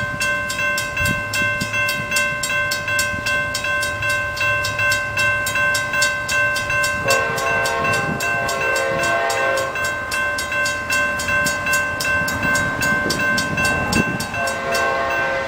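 Railroad crossing bell ringing about four strikes a second, warning that a train is coming. About seven seconds in, the approaching Amtrak train's horn sounds a blast of about three seconds, and it sounds again near the end.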